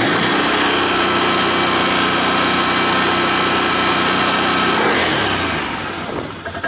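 ATV engine running steadily after about two and a half minutes of warm-up, with a steady whine over it that fades about five seconds in, leaving the engine quieter.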